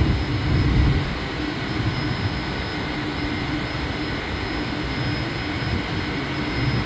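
Steady roar of an offshore platform's gas flare burning off excess gas while the platform is shut down, with a low rumble and a steady hum and faint high whine under it. It is slightly louder in the first second.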